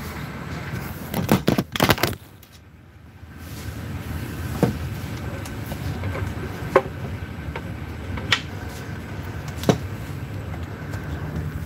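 Steady running rumble heard from inside a passenger train carriage, with a burst of loud clatter about a second in, a short quieter lull, then single sharp clicks every second or two.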